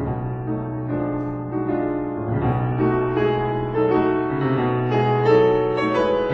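Slow piano music: a low bass note held under changing chords, with a new bass note struck about two seconds in.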